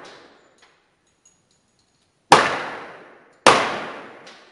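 .45 ACP pistol fired twice, a little over a second apart, each shot ringing and echoing off the walls of the indoor range. The echo of an earlier shot is fading at the start.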